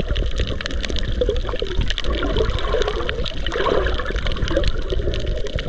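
Water sloshing and bubbling, heard underwater and muffled, with a steady scatter of small sharp clicks and crackles and a low rumble.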